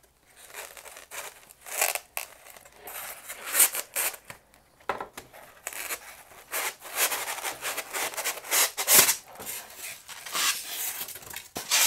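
Packaging being handled: a cardboard box and polystyrene foam inserts scraping and rustling in irregular bursts as a boxed ceramic bowl is pulled out and unwrapped.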